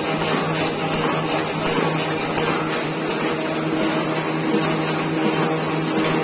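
3302H two-colour sheet-fed offset printing press running at speed, a steady mechanical whir with a constant low hum and a high hiss as its cylinders turn and sheets feed through.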